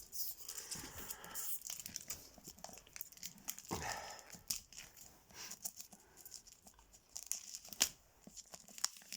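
Packaging being crinkled and torn open by hand: soft, irregular crackling and rustling, with scattered light clicks and a few brief louder rustles.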